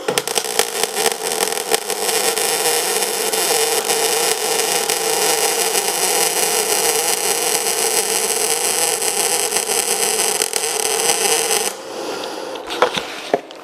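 CO2 MIG welding arc on steel plate, solid steel wire fed by a Novoarc MIG-200GB welder at a low current setting: a steady dense crackling hiss for about twelve seconds that cuts off when the arc is stopped. A couple of light knocks follow near the end.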